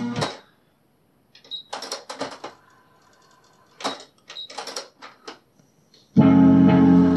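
Cassette music from a Panasonic RX-DT55 boombox cuts off. A string of mechanical clicks and clunks from its cassette-deck keys being pressed follows, with a faint steady hum between them. The music starts again about six seconds in.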